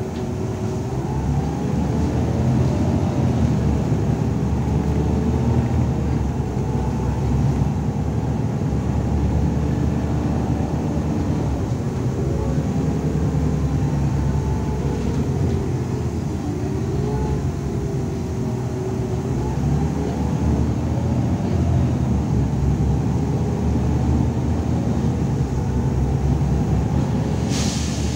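Irisbus Citelis 12 m city bus under way, heard from inside the passenger cabin: a steady low engine and road rumble with a drivetrain whine that rises and falls in pitch as the bus speeds up and slows. A short hiss near the end.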